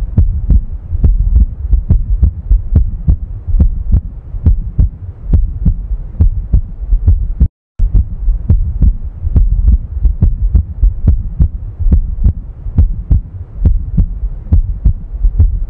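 Heart sounds: a regular run of short, low heartbeat thumps, cutting out briefly about seven and a half seconds in.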